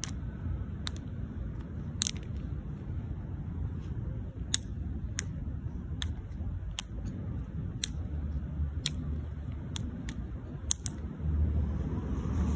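Wind rumbling on the microphone, with sharp, irregular clicks about once a second.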